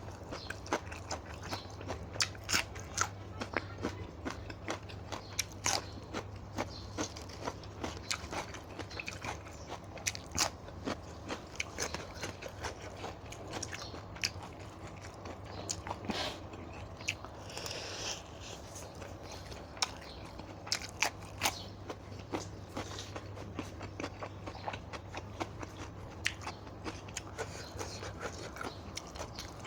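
A person chewing and biting crunchy food close to the microphone, with many irregular crunches and mouth clicks, and a brief hiss about halfway through.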